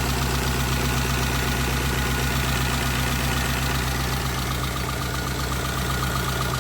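Peugeot 206 1.4 petrol engine idling steadily, with a regular ticking that comes in more clearly about four to five seconds in.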